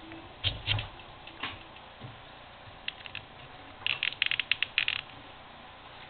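Plastic parts of a RepRap Prusa 3D printer's quick-release X carriage being handled: a couple of clicks and dull knocks, a few light clicks, then a rapid run of about ten sharp clicks lasting about a second.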